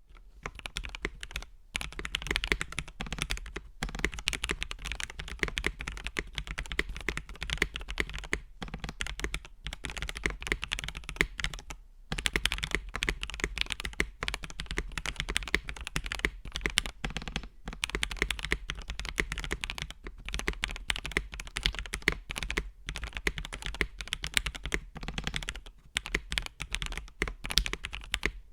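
Typing on a GAS67 mechanical keyboard with Gateron Milky Yellow Pro linear switches. The keystrokes come fast and continuous, broken by a few short pauses.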